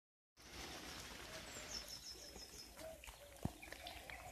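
Faint outdoor garden ambience after a brief moment of silence, with a small bird singing a quick run of high chirps about two seconds in and a few fainter calls.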